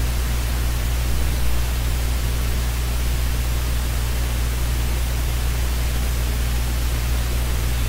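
Steady hiss with a constant low electrical hum underneath: the background noise of the recording's microphone, with no distinct sound event.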